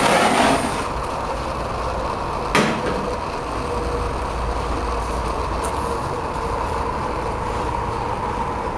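Fire drawing in a wood-burning fireplace: a steady rumble and hiss, with one sharp knock about two and a half seconds in.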